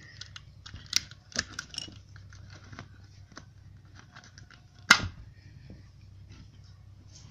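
Small clicks and rattles of the opened plastic case and parts of a 12 V DC adapter being handled, with one sharp knock about five seconds in.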